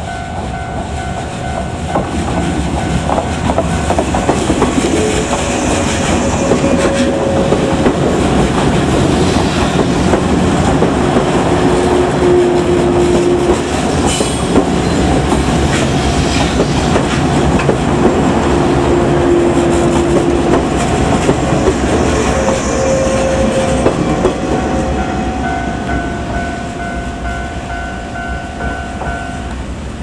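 A 485 series 'Hana' electric train passes close by, its wheels clacking over the rail joints. The rumble builds, stays loud through the middle and fades near the end. Level-crossing warning bells ring steadily, heard clearly at the start and again as the train fades.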